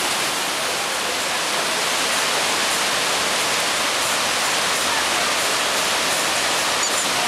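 Fast mountain stream rushing and cascading over rocks: a loud, steady wash of water noise.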